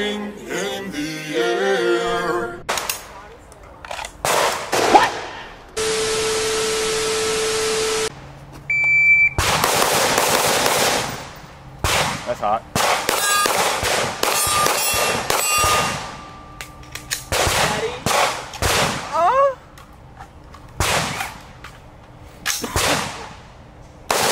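Gunfire from a pistol and an AR-style rifle in a shooting drill: single shots and quick strings of shots at irregular spacing. A steady two-second hiss comes about six seconds in, and a short high beep about nine seconds in.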